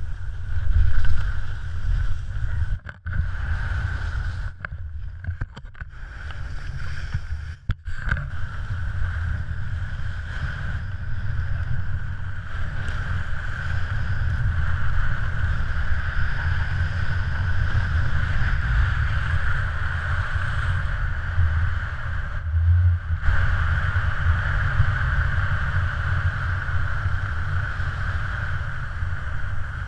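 Wind buffeting a GoPro camera's microphone while skiing downhill, a steady rumble, over the hiss of skis sliding on snow. The hiss drops out briefly a few times in the first eight seconds and once a little past twenty seconds.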